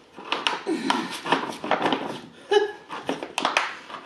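Plastic crinkling and sharp clicks as a plastic drink pouch is handled and its spout cap is twisted and pulled open, with two short vocal sounds, about a second in and just past halfway.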